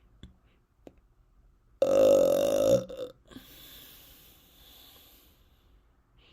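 A woman's deliberate, voluntary burp: one loud, rippling burp about a second long, starting near the two-second mark and trailing off. A faint breathy hiss follows.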